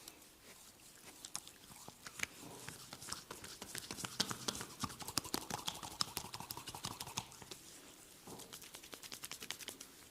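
Close-miked massage sounds: hands working on skin and hair, giving a fast, uneven run of small clicks and rubbing that builds about two seconds in, is densest in the middle and thins out near the end.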